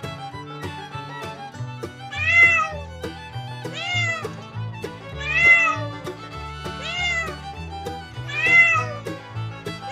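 Domestic cat meowing over background music: five meows about a second and a half apart, each rising and then falling in pitch.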